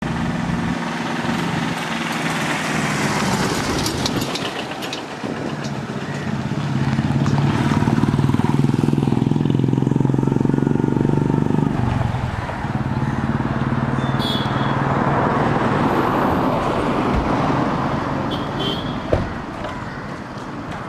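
A motor vehicle's engine running steadily, growing louder toward the middle and changing pitch about twelve seconds in before it carries on.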